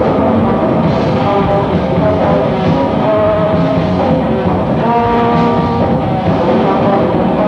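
Live rock band playing loud, drums and amplified instruments, without a break.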